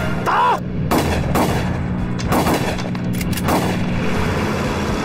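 Rifle shots, several in irregular succession over about three and a half seconds, above the steady low drone of a propeller aircraft's engine.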